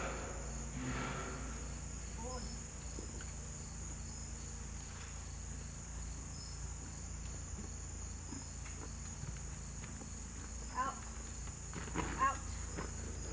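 Insects chirping steadily in the background. A few short, arching pitched calls come about two seconds in and twice near the end.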